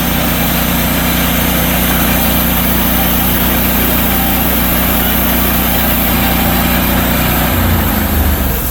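Portable sawmill's engine running steadily under load, with the hiss of the saw cutting oak over the engine note. About 7.5 s in the engine note shifts, and near the end the sound drops to a quieter idle.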